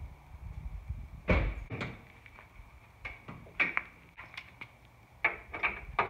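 Several clunks and clicks from a Toyota Tacoma pickup's door and hood as the hood is released, lifted and propped open, the loudest clunk about a second in and a quick run of clicks near the end.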